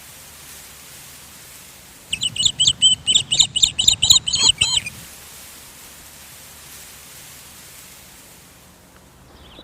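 A rapid series of high-pitched animal calls, about a dozen notes in three seconds, over a steady background hiss.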